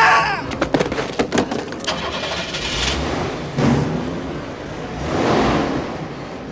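A van engine starting: a quick run of clicks and rattles, then the engine catches and revs in two surges, about three and five seconds in.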